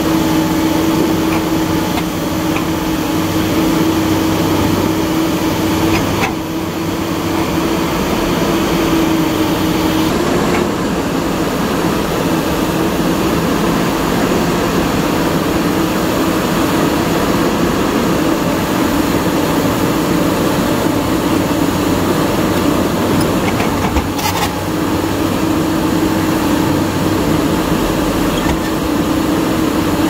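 Heavy diesel engines running steadily under load, chiefly the JCB JS210 crawler excavator's engine at close range as its bucket pushes a Tata 3718 tipper stuck in mud, with two brief knocks along the way.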